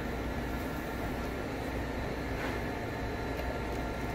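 Steady hum and hiss of commercial kitchen ventilation.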